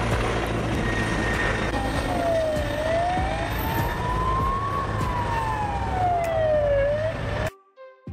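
Helicopter rotor and engine noise, a steady low beating rumble. A siren wails over it from about two seconds in, sliding slowly down, up and down again. Both cut off suddenly near the end.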